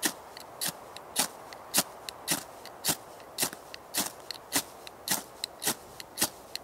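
Metal scraper rasping along a magnesium fire-starter block in quick, even strokes, about two a second.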